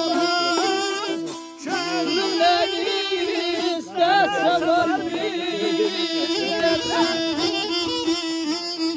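Azerbaijani folk music: a melody full of slides and trills over a steady held drone note.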